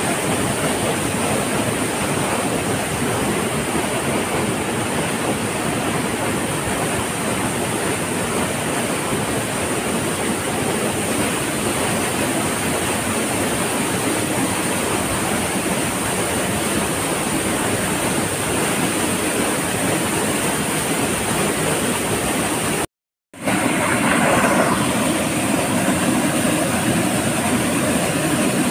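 Waterfall: a loud, steady rush of falling water, broken once by a brief gap about three-quarters of the way through.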